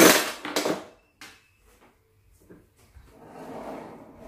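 A kitchen drawer sliding with a clatter, loud and lasting under a second, followed by a single light tap and, about three seconds in, a softer, longer rustling noise.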